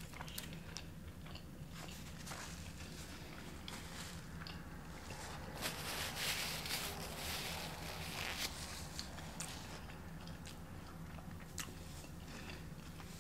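Close-miked eating sounds: a person biting and chewing fast food, with scattered small mouth clicks and a louder stretch midway.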